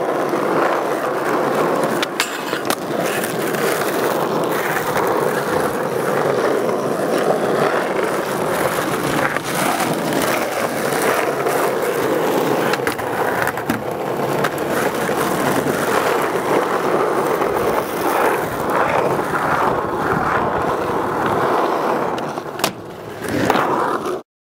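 Skateboard wheels rolling on the concrete of a skatepark, with sharp clacks of the board popping and landing scattered through. The rolling cuts off suddenly near the end.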